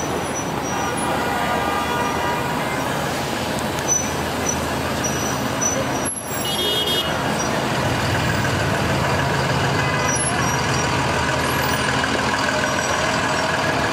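Busy city street traffic: a steady mix of engines and road noise from cars and taxis, with a few tonal sounds such as horns over it.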